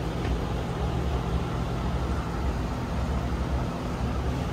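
Steady low rumbling hum of a running motor, even throughout with no separate events.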